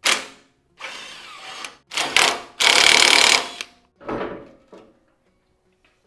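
Handheld cordless power tool running in four short runs, spinning out the front bumper's last mounting bolts. The third run is the longest and loudest.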